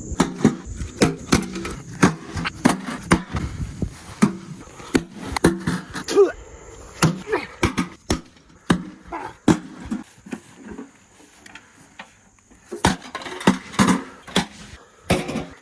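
Repeated sharp knocks and bangs, several a second, with a quieter stretch about ten to twelve seconds in; voices murmur underneath.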